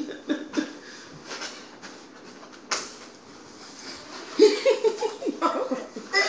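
A few light clicks and one sharp knock a little before the middle, then a woman's wordless voice in short sounds that rise and fall near the end.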